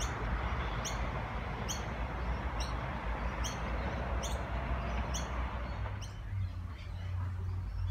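A bird calling outdoors, a short high chirp that slides downward, repeated steadily a little faster than once a second, over a steady rushing background. About six seconds in the rushing drops away, the chirps fade, and a low hum remains.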